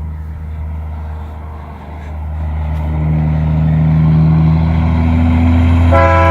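Caterpillar C15 inline-six diesel engine running with a deep steady drone, revving up louder with rising pitch from about two seconds in. Near the end a sustained, horn-like chord of several tones starts over it.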